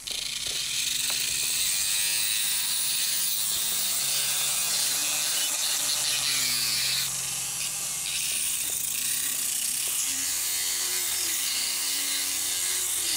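Motorized equine dental handpiece with a thin rotary disc, running and grinding against a horse's incisors as the teeth are filed down. A steady, high-pitched whine that starts abruptly and eases slightly about halfway through.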